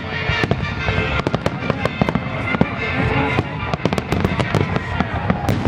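Fireworks going off close by: a dense, irregular run of sharp crackles and pops, many a second, with louder bangs among them.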